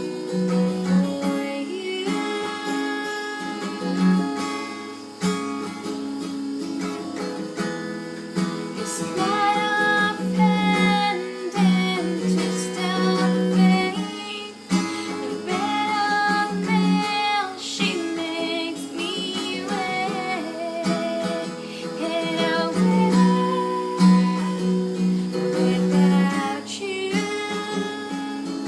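Acoustic guitar strummed to accompany a solo voice singing a pop song, the voice coming in about nine seconds in.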